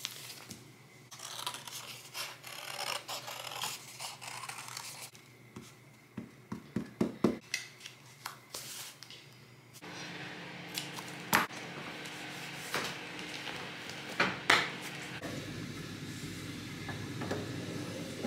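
Paper and craft materials handled on a table: pages rustling and a hardback journal closing, then a quick run of sharp clicks about seven seconds in. Later, scissors snip washi tape with a couple of sharp snips over a low steady hum.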